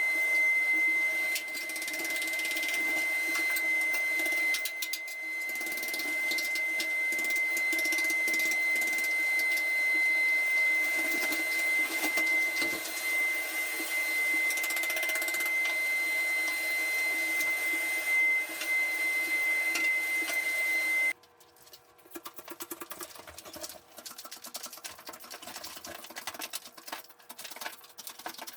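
A small electric machine running steadily with a constant high whine, cutting off suddenly about three-quarters of the way through. After that, only faint clicks and scraping remain.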